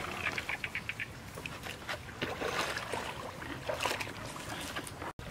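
A hoe scraping and dragging through mud in a shallow muddy ditch, with the water sloshing and splashing and scattered sharp clicks. The sound cuts off abruptly near the end.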